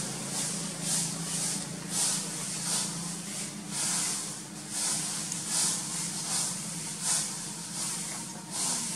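Outdoor ambience: a high hiss that swells and fades about twice a second, over a steady low hum.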